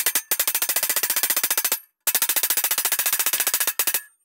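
Hand hammer striking a sheet-steel floor repair panel over a form tool in fast, rapid blows, hammering a strengthening channel into the panel. The blows come in two runs of about two seconds with a brief pause between them.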